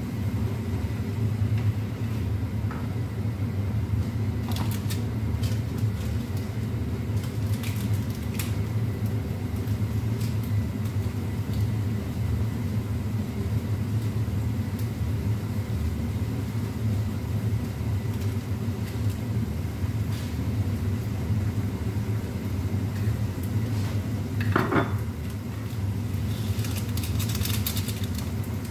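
Cooking at a gas hob: a steady low hum runs underneath scattered clinks and scrapes of a utensil against a frying pan, and there is a short sizzle near the end as food goes into the pan.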